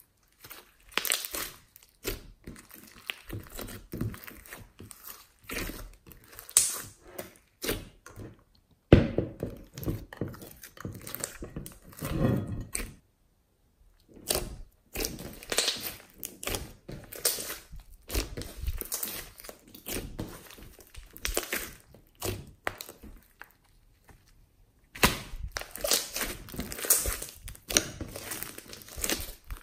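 Hands kneading and squeezing a thick slime mixed with clay, making irregular sticky crackles, pops and squelches. There is a sharp snap about nine seconds in, and a brief pause about halfway through.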